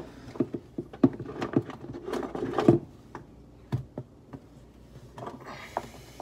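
Rummaging through an overhead kitchen cabinet: spice containers being shifted about, giving a run of irregular light knocks and clatters, with a brief rustle near the end.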